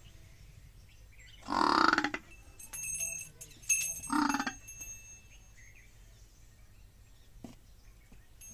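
Water buffalo calf calling: two short, loud calls about two and a half seconds apart, with a fainter call between them.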